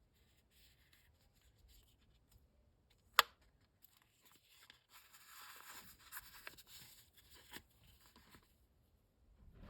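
Packaging being handled and opened: one sharp click about three seconds in, then a few seconds of rustling and crinkling with small clicks.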